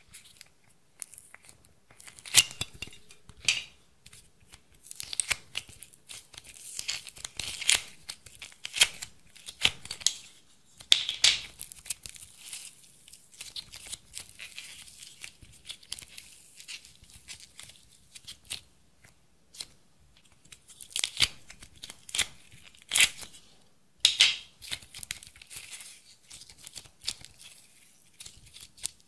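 Thick slime being pulled, folded and stretched by hand, making sticky crackles and tearing sounds. The sharp crackles come irregularly in clusters, with quieter stretches in between.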